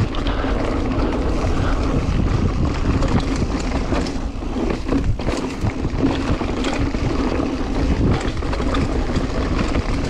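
Mountain bike ridden over rough, rocky singletrack: tyres and frame rattling and knocking over rocks, with wind buffeting the camera's microphone.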